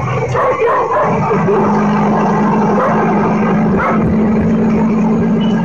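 A motorcycle engine running at a steady idle, a low even hum that stops abruptly near the end.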